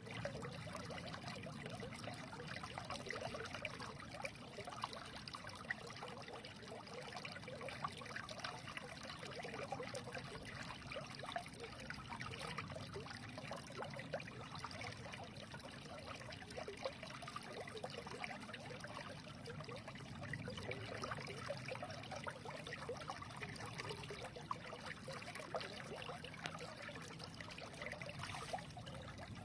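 A small stream running and trickling steadily, with bubbling and splashing over stones.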